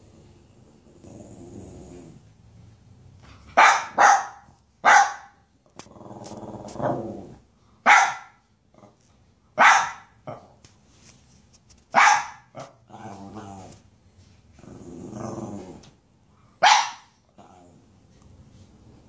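Small white dog barking sharply about seven times, once as a quick pair, with low drawn-out growls between the barks.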